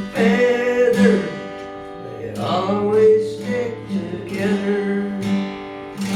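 Acoustic guitar strummed in a slow run of chords, each left to ring, as the song's instrumental ending.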